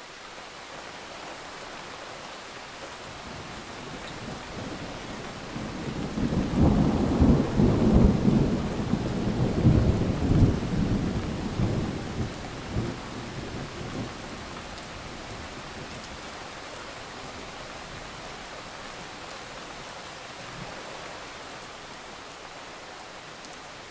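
Steady rain with a long roll of thunder that swells a few seconds in, is loudest through the middle with sharp peaks, then dies away, leaving the rain hiss.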